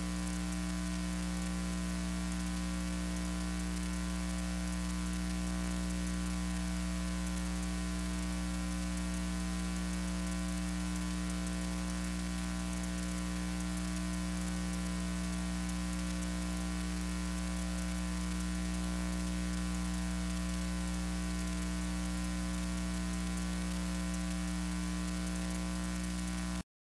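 Steady electrical hum with a hiss over it, the noise of a soundless archival film transfer; it cuts off abruptly near the end.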